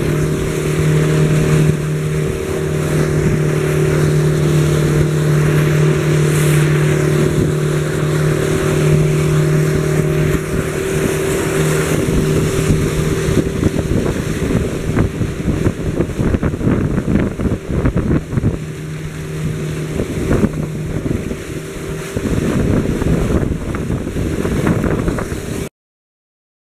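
Motorboat engine running at speed with a steady hum, under wind on the microphone and rushing water. The noise turns choppier with many short knocks in the second half, then cuts off abruptly near the end.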